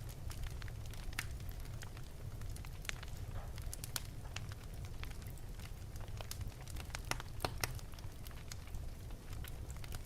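Wood fire burning in an open fireplace, crackling with irregular sharp snaps and pops over a steady low rumble, several snaps coming close together about seven seconds in.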